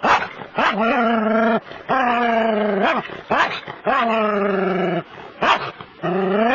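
Small terrier barking over and over in long, drawn-out barks, about six in a row, each starting sharply and held for up to a second.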